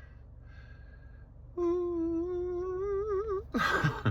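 A man hums one long held note about one and a half seconds in, steady at first and wavering into vibrato before it ends. A loud breath out follows near the end.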